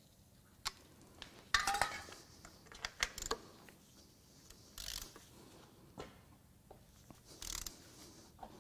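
Socket, extension and ratchet clinking against a seized bolt and the cast iron engine block as the socket is fitted and the wrench set up. The sound is a few short, separate metal clicks and clatters, some with a brief ring.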